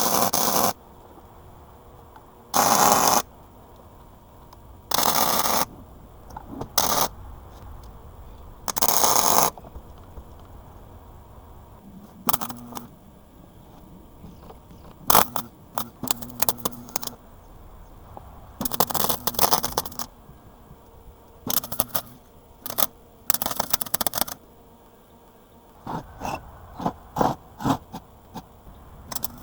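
Welding in short bursts, each under a second and separated by pauses of a second or two, like tack welds being laid on a steel base. From about twelve seconds in, the bursts turn shorter and more ragged, with crackling and scattered clicks.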